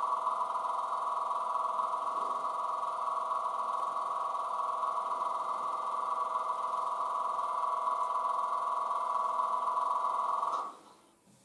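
A Class 91 electric locomotive sound file played by a model's DCC sound decoder through its small speaker. It gives a steady electrical hum of several tones from the start-up sequence, which cuts off abruptly about ten and a half seconds in.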